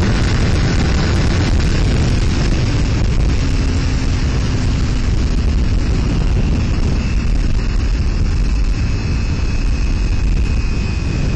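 Steady wind rush over the microphone and the Kawasaki Ninja 300's parallel-twin engine running at a constant cruising speed on the open road.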